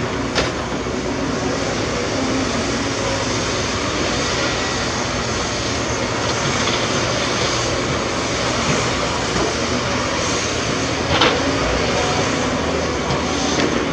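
Heavy diesel earth-moving machinery running steadily, with a sharp knock about half a second in and another about eleven seconds in.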